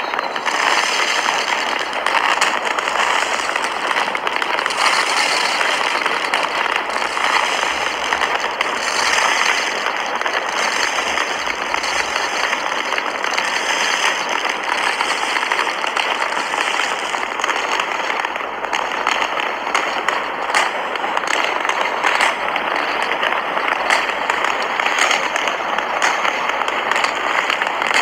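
Aerial fireworks bursting in quick succession: a dense, continuous crackle with many sharp bangs and pops throughout.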